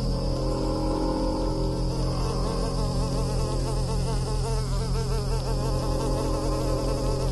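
Insect-like wing buzzing with a constantly wavering pitch, over a steady low electric hum: the designed sound of a small winged light-bulb creature hovering and flying.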